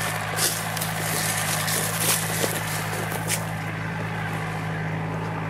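An engine running steadily with a low, even drone, likely a vineyard tractor hauling grape bins. Over it there is crackling and rustling for the first three and a half seconds, which then fades.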